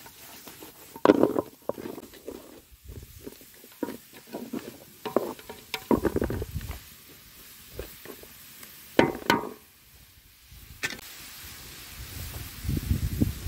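A wooden spatula scraping and knocking against a wide metal pan as chicken pieces and shredded vegetables are stirred over a wood fire, in irregular clusters of clicks and scrapes, the loudest about a second in and around nine seconds. A low rumble comes in near the end.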